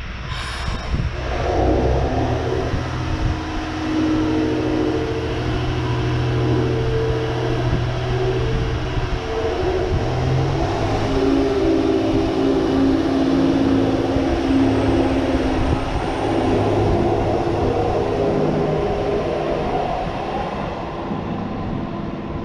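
JR Hokkaido H100 'DECMO' diesel-electric railcar pulling out of the station, its engine and drive running with steady humming tones over a low rumble. A brief hiss comes just after the start, and a faint rising whine is heard in the second half as the train draws away.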